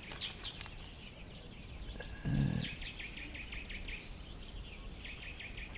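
Birds chirping in the background, a long run of short, quickly repeated chirps, with one brief low sound about two seconds in.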